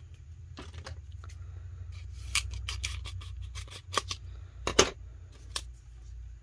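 Scissors snipping through a decal sheet in several short, irregular cuts, the loudest a little before the end.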